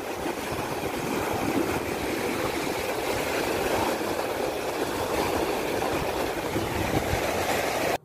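Small waves breaking and washing up a sandy shore: a steady rush of surf.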